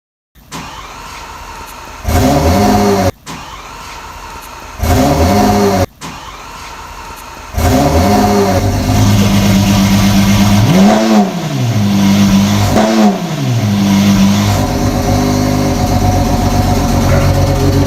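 Lamborghini Aventador's 6.5-litre V12 with an aftermarket exhaust starting up. Twice it fires with a loud rising note that cuts off abruptly. The third time, about seven seconds in, it keeps running at a fast, loud idle, with two quick throttle blips near the middle before settling to a steady idle.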